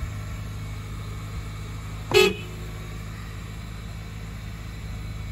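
1999 Toyota Camry's 2.2-liter four-cylinder idling steadily at a raised cold-start idle, just after a cold start. About two seconds in, a single short car-horn toot sounds over it.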